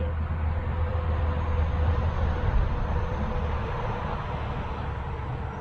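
A bicycle rolling along a trail, with steady wind rumble on the microphone over the hiss of the tyres and a faint steady hum.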